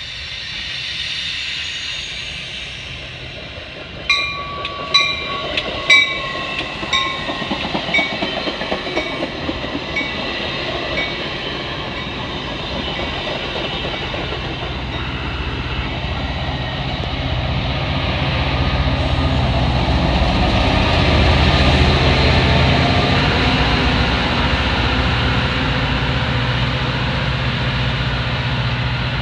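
Metra push-pull commuter train passing close: a bell rings about once a second and fades out. Then the rumble of the bilevel cars on the rails builds into the low drone of the EMD F40PH diesel locomotive pushing at the rear near the end.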